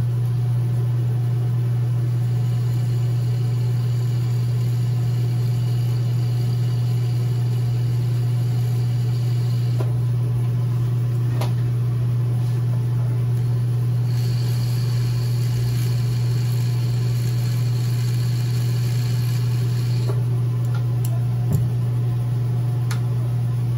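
Jeweler's electric polishing motor running with a steady, loud hum while a gold chain is polished. A fainter high whine rises over it twice for several seconds each, as the tool works the chain.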